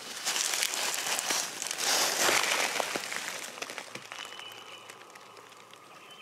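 Dry pine straw and leaf litter crunching and rustling as a person shifts and moves on the forest floor. The sound is loudest in the first half and fades to a few quieter rustles.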